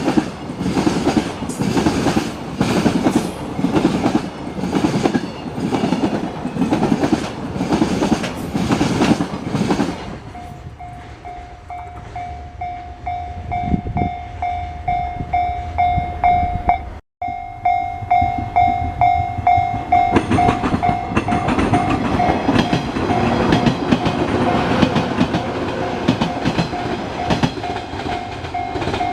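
A train passing a level crossing, its wheels clattering in an even rhythm over the rail joints. About ten seconds in the clatter fades and a Japanese level-crossing warning bell starts ringing in fast repeated dings, while the noise of another approaching train grows louder toward the end.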